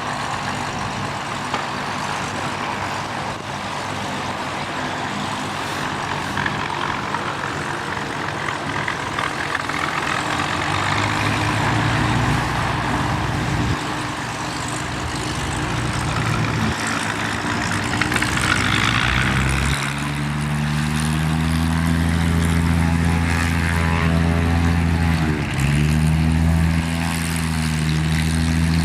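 Propeller aircraft engine running, its steady drone growing louder from about ten seconds in and strongest in the last third, with a brief dip in pitch a few seconds before the end.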